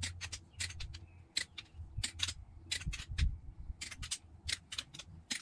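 A torque wrench ratcheting on cylinder head bolts being tightened: short sharp clicks in small irregular clusters, under a faint low hum.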